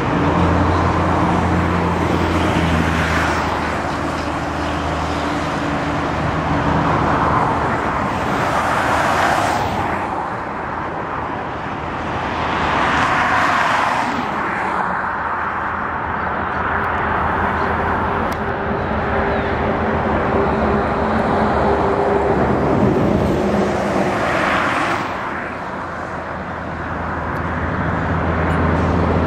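Road traffic passing on a highway, cars and trucks going by in rushing swells every few seconds, over the steady drone of a General Motors G22CW diesel freight locomotive.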